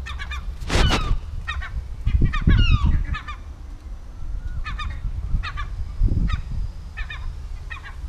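Gulls calling from a rooftop colony: several birds giving short, harsh, repeated calls that overlap. One loud call comes about a second in, and a dense run of calls follows between two and three seconds. Wind rumbles on the microphone underneath.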